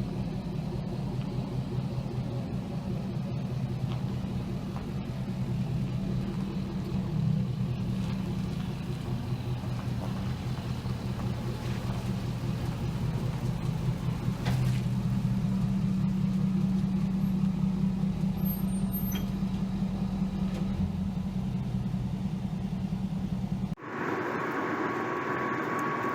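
An engine running steadily, a low, even drone. Near the end it cuts off suddenly and gives way to a higher, rushing road or wind noise.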